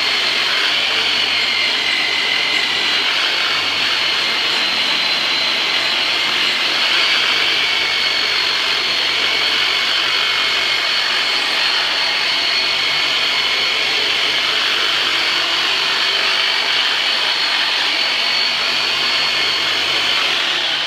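Handheld electric vibration massager running steadily on the patient's back muscles: a continuous high-pitched motor whine over a buzz.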